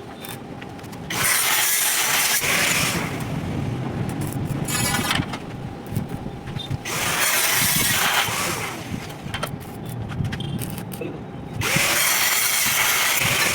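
Electric arc welding on steel: the arc crackles and hisses in three bursts of about two seconds each, with short pauses between welds.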